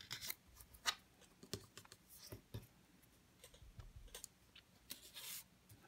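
Faint, irregular light taps and clicks from handling a paper mask and crafting tools on a cutting mat, with a short paper rustle about two seconds in and a longer brushing rustle about five seconds in.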